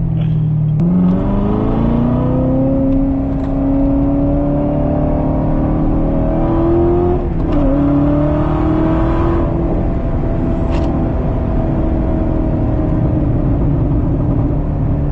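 2019 Corvette ZR1's supercharged V8 accelerating: its pitch climbs for several seconds, drops sharply at an upshift about seven seconds in, climbs again, then levels off to a steady run.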